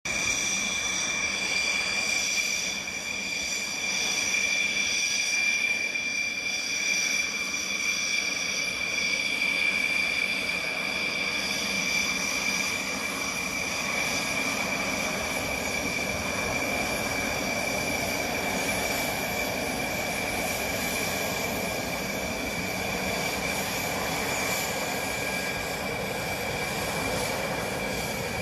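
Jet engines running with a steady high-pitched turbine whine over a broad rushing noise.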